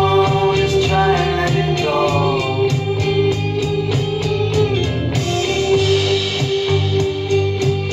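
Electric bass guitar played along to a recorded indie pop song, with a man's singing voice, a held keyboard tone and a steady beat in the track.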